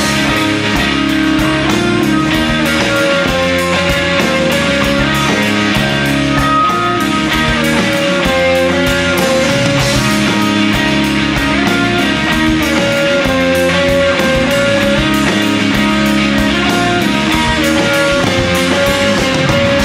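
Live rock band playing an instrumental passage: electric guitars over bass and a steady drum beat, with no vocals.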